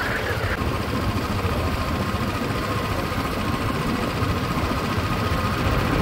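Small vehicle engine running steadily while moving, with wind rumble on the microphone. A faint steady high whine joins about half a second in.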